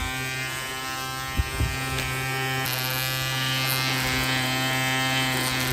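Ryobi 18-volt cordless string trimmer's electric motor running steadily on its wheeled mower deck, a constant electric hum-whine with the line spinning. A hissier edge joins about two and a half seconds in.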